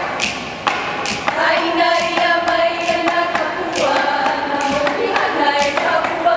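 Hawaiian hula chant (mele) in held, melodic voice, accompanied by sharp strikes of an ipu gourd drum about every half second to a second.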